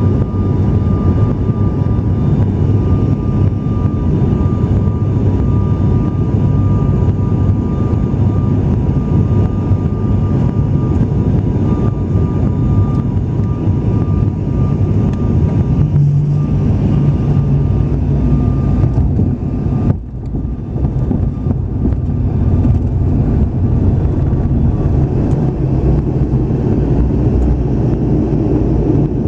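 Cabin noise of a turboprop airliner during its descent to land: a loud, steady low drone of engines and airflow with a thin, constant high whine. The drone shifts slightly past the middle and briefly dips about two-thirds of the way through.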